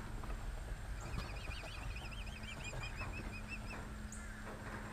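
Young mute swans (cygnets) calling in runs of fast, wavering high-pitched peeps, strongest from about a second in for a couple of seconds, with a few scattered notes later.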